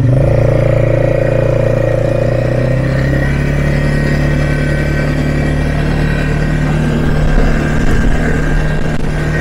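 ATV engine picking up speed at the start, then running steadily under load as the machine rides along a dirt trail.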